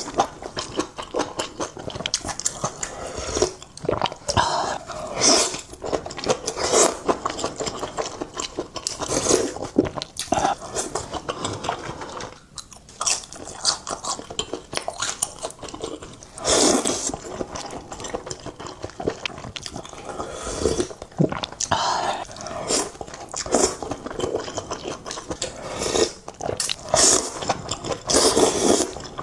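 Close-miked eating: a person biting and chewing food, with irregular crunching and smacking mouth sounds.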